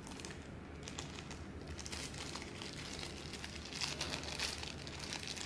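Small clear plastic bag of spare quadcopter propeller blades crinkling as it is handled in the fingers, a steady run of small crackles.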